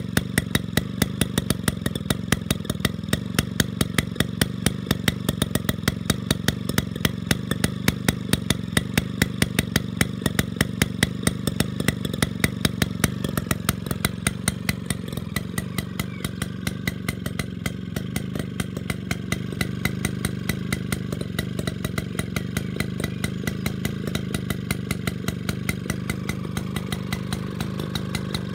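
Villiers 98cc Midget single-cylinder two-stroke lawn mower engine running steadily off-load on a stand. Its exhaust beats evenly throughout, with sharper louder pops about three a second in the first half that thin out after the middle.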